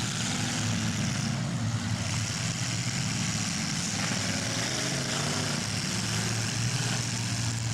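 Engines of full-size demolition derby cars running in a steady, unbroken drone with a hiss over it.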